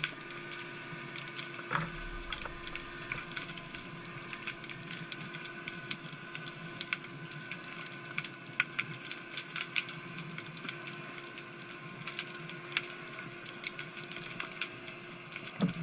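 Underwater ambience over a rocky seabed: a continuous, irregular crackle of sharp clicks, typical of snapping shrimp, over a faint steady hum.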